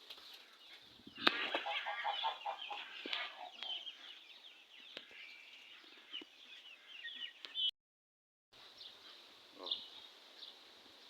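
Naked-neck chickens clucking and calling in a busy run of short notes lasting about six seconds, then only a few scattered calls. The sound cuts out completely for under a second about eight seconds in.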